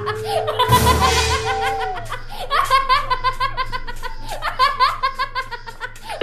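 Rapid, high-pitched laughter in repeated 'ha-ha' bursts, several runs in a row, over background music. There is a brief noisy rush about a second in.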